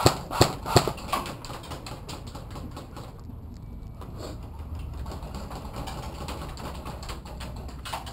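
Airsoft gun firing a quick string of about four sharp shots in the first second or so, roughly three a second, the last one weaker; then a steady low rumble.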